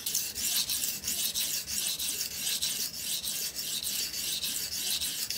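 Steel knife blade scrubbed back and forth on a 600-grit diamond sharpening plate in a steady run of quick, even strokes. The second side of the bevel is being ground to push the burr back across the edge.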